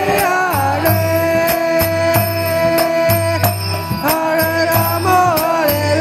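Devotional kirtan chant: women's voices singing over a harmonium's sustained chords, with a mridanga drum keeping a steady beat of deep and sharp strokes.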